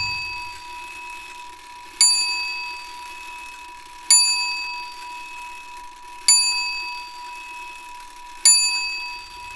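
A bright bell-like chime struck four times, about every two seconds. Each strike rings out with several tones and fades, and a lower tone keeps sounding between strikes.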